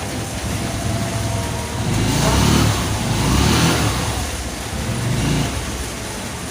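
Steady rain, with a vehicle passing on the wet road: a swell of tyre hiss and engine rumble that builds up about two seconds in and fades away again.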